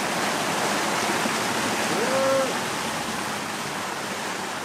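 Steady rush of wind and breaking waves around a sailboat in rough seas, with a short rising tone that holds briefly about two seconds in.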